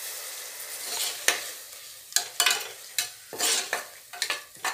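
Metal ladle stirring and scraping against the inside of a pressure cooker while onions and ginger-garlic paste fry and sizzle in the oil. The sizzle is steady at first; from about two seconds in, a run of short, irregular ladle scrapes and knocks comes through.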